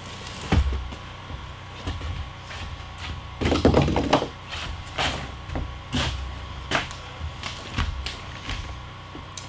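Irregular wooden knocks and thumps of footsteps on a plywood subfloor and a length of framing lumber being picked up and set against a wall, the loudest cluster of knocks about three and a half seconds in.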